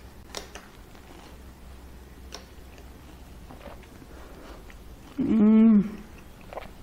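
A few light clicks and quiet eating sounds as falooda is spooned and tasted, then about five seconds in a woman's loud, closed-mouth 'mmm' of enjoyment lasting about half a second.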